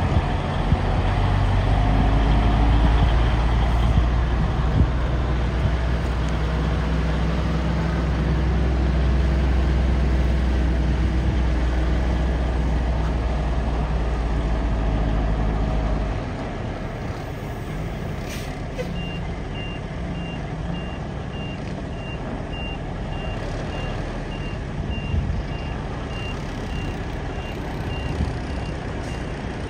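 Heavy diesel truck engine idling with a steady low hum; it drops away about 16 seconds in. From about 19 seconds on, a vehicle backup alarm beeps steadily in short, evenly spaced high beeps.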